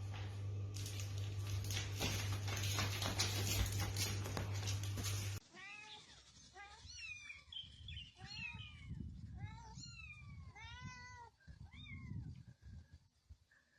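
A cat meowing repeatedly: about six separate meows, each rising and then falling in pitch. They follow a first stretch of loud, hissy noise with a steady low hum, which stops abruptly about five seconds in.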